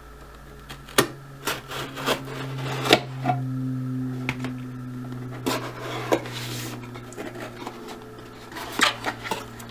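Cardboard shipping box being cut and opened by hand: a knife slitting the packing tape, then scattered clicks, scrapes and rubbing of the cardboard flaps being pulled open. A low steady hum runs underneath.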